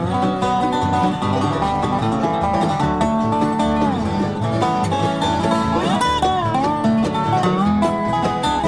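Bluegrass instrumental band playing: banjo, guitar and upright bass with a dobro whose slid notes glide down about four seconds in and up again about six seconds in.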